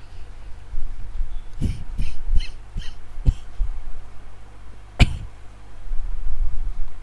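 A quick run of about five short clicks and knocks, then a single sharper, louder click a couple of seconds later, over a steady low hum.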